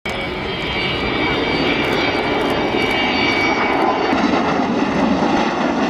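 Avro Vulcan bomber XH558 flying past on its four Rolls-Royce Olympus turbojets: continuous loud jet noise with steady high whistling tones above it.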